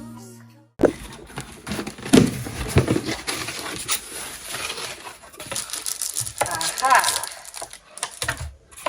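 Crinkling plastic packaging with knocks and clicks of handling, as items are pulled out of a cardboard box. A short stretch of music cuts off just before it starts.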